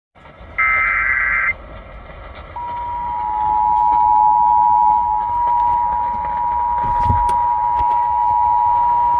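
Emergency Alert System tones on AM radio, heard through a car radio over static. About half a second in comes a one-second warbling burst of SAME digital header data. At about two and a half seconds the steady two-tone EAS attention signal starts and holds.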